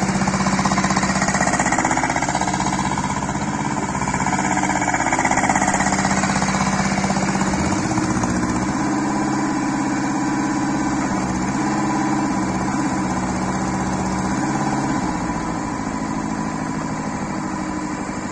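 Hanix H08 mini excavator's engine running steadily; from about eight seconds in its note steps up and down repeatedly as the arm and bucket are worked.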